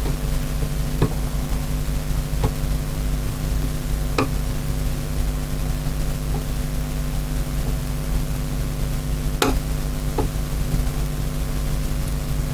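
A steady low hum with about six light clicks scattered through it, the sharpest about nine seconds in: small screws and a screwdriver being handled on a carburettor.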